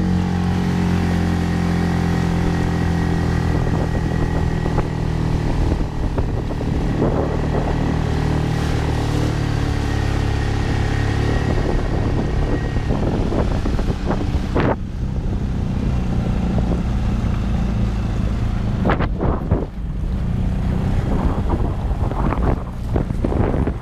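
Storm 6 hp outboard motor running steadily at high throttle, pushing a small inflatable boat on the plane. A little past halfway it is throttled back and keeps running low while water slaps and splashes against the hull.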